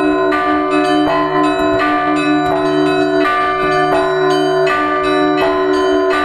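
Russian Orthodox cathedral bells rung together in a continuous peal. Several bells of different pitches are struck in a steady rhythm, about three strokes every two seconds, over the sustained hum of a larger bell.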